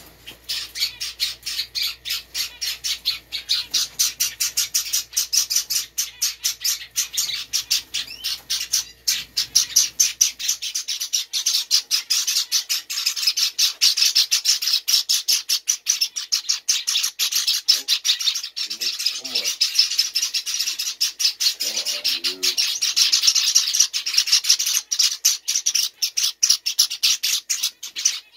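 Young Java finches (Java sparrows) chirping nonstop, a rapid run of short, high-pitched calls at about four a second: the food-begging calls of fledglings being hand-fed.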